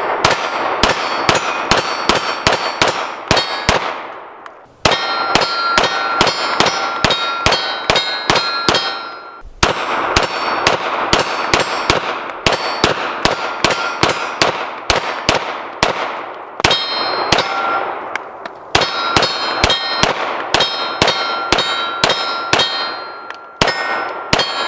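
Sig Sauer P226 9mm pistol firing strings of rapid shots, about two to three a second, with short pauses between strings where magazines are changed. The shots carry a metallic ringing tone.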